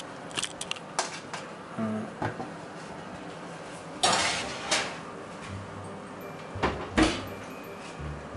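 Metal baking tray handled with a few small clicks, then slid onto the oven's wire rack with a loud metallic scrape about four seconds in. A couple of sharp knocks follow near the end as the oven door is shut.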